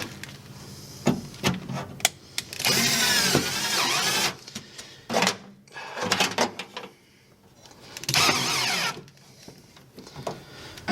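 Power drill running in two short bursts, the first about a second and a half long and the second under a second, with clicks and knocks of tools being handled between them.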